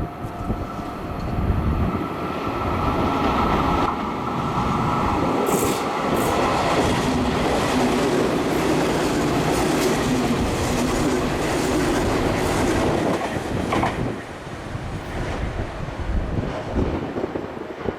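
Meitetsu electric train running through the station without stopping, its wheels clattering over the rail joints. The sound is steady and loud for about twelve seconds, then falls away as the train clears.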